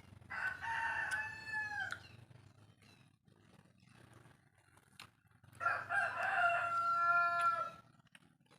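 A rooster crowing twice, each crow about two seconds long and ending with a drop in pitch, the second coming about four seconds after the first.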